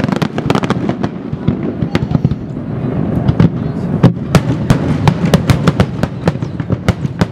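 Aerial fireworks shells bursting in a dense finale barrage: loud bangs and crackles following one another several times a second, overlapping.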